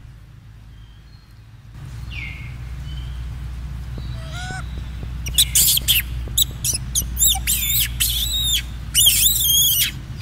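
Baby monkey shrieking: a rapid series of loud, high-pitched squeals that rise and fall in pitch, starting about halfway through, over a low steady rumble.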